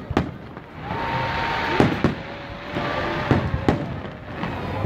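Aerial firework shells bursting in a string of about half a dozen sharp, irregular bangs, with crackle and rumble between them.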